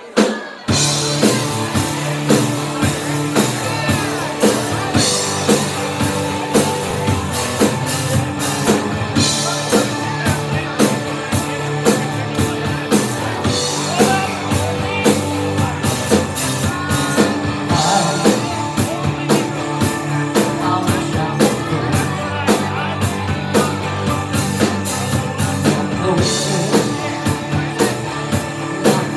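Live rock band playing a song: drum kit, electric guitar and electric bass, with a woman singing lead. The band comes in all at once just after the start, then plays on at full volume with a steady drum beat.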